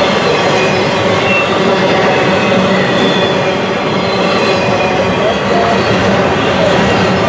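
Double-stack intermodal well cars rolling past at speed: a steady, loud rumble of steel wheels on the rails, with a few brief, faint, high wheel squeals.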